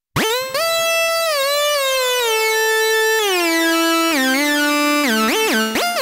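GForce Oberheim OB-X software synthesizer playing its 'Sync Lead' preset, a classic hard-sync lead. A single-note line starts suddenly and steps down through gliding notes, then swoops rapidly up and down in pitch near the end.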